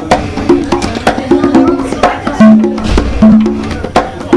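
Live band music led by congas played with the bare hands in a quick rhythm, over a drum kit and a bass line.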